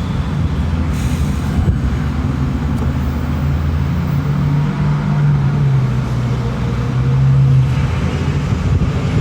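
Low rumble of vehicle traffic, with one engine's hum standing out for a few seconds in the middle.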